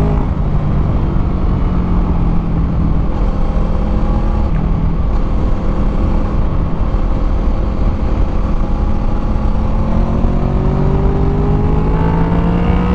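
Honda VFR800's V4 engine through a Delkevic aftermarket exhaust at a steady cruise, rising in pitch as it accelerates over the last few seconds, with heavy wind rush on the microphone.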